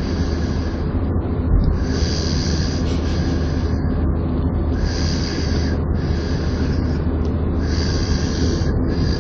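Snoring, with a breath about every three seconds, over the steady low rumble of a moving vehicle.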